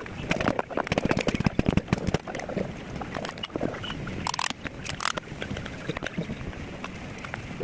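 Irregular clicks, knocks and scrapes of parts and tools being handled in an exhaust fan repair, densest in the first two seconds or so, with two short sharper rasps later on.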